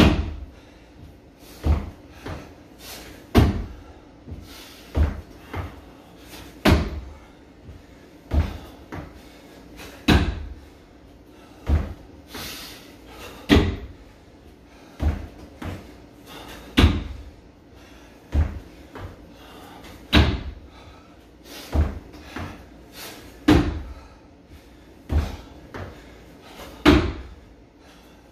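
Repeated thuds of feet landing on a homemade wooden plyometric box and stepping back down to the floor during box jumps. There is a sharp impact roughly every one and a half to two seconds.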